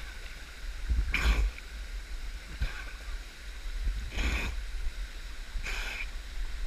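Water sloshing and splashing against a waterproof action camera held at the surface of a pool, over a steady low rumble. Three louder splashes come a second or two apart.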